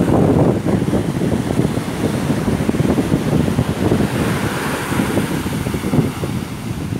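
Wind buffeting the microphone, a loud, gusting rumble, with ocean surf noise underneath.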